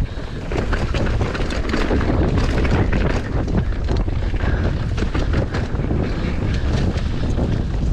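Wind buffeting the microphone on a fast mountain bike descent, with tyres running over dirt and the bike clattering and knocking over bumps many times.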